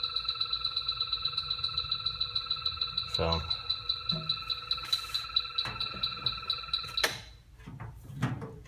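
H10 electronic refrigerant leak detector beeping rapidly, several beeps a second, the fast rate showing that it is sensing refrigerant from a leak in the wall. The beeping cuts off suddenly near the end.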